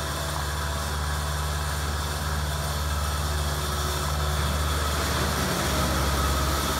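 Skid steer loader engine running steadily with a low hum as the machine drives over a gravel driveway, the engine note shifting slightly about five and a half seconds in.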